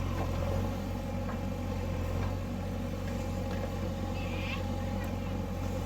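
JCB backhoe loader's diesel engine running steadily at low revs.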